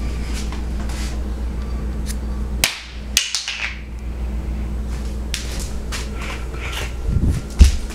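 Bottle cap being batted and chased by a cat: scattered light clicks, a short skittering rattle about three seconds in, and a thump near the end, over a steady low hum.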